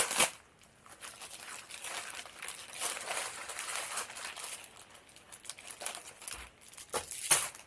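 Plastic packaging crinkling and rustling as it is handled and opened, uneven throughout, with louder crackles at the start and twice near the end.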